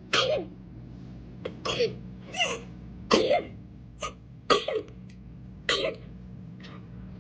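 A baby coughing in a run of about seven short coughs, roughly one a second. The cough is that of an infant with whooping cough.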